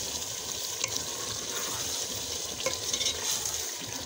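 Onion-tomato masala sizzling in hot oil in a metal pot while being stirred with a wooden spoon, a steady frying hiss with a couple of light clicks of the spoon against the pot.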